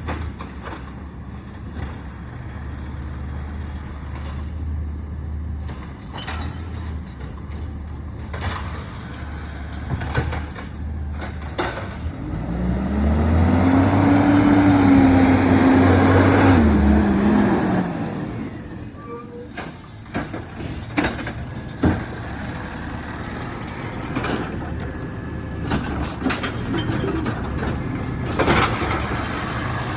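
Recycling garbage truck engine idling, revving up for about five seconds midway and then dropping back to idle, with occasional clunks and a brief hiss.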